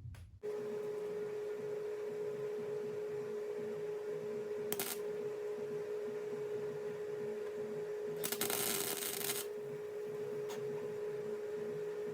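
Welding on 18-gauge sheet-metal patch panels: a brief crackling burst of the arc, then a longer one lasting about a second, as holes are filled. A steady hum sounds under it.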